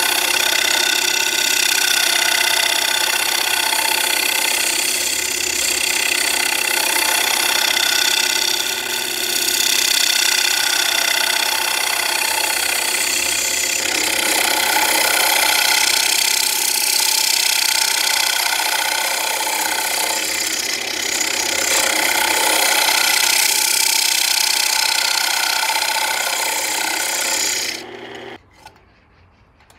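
Wood lathe running with a gouge cutting the face of a spinning Korean walnut plate blank: the hiss and scrape of the cut over a steady motor whine. It cuts off suddenly near the end.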